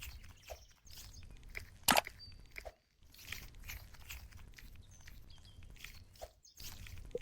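A squishy foam toy being squeezed and handled, giving an irregular run of soft crackling and squelching sounds, with one sharper snap about two seconds in.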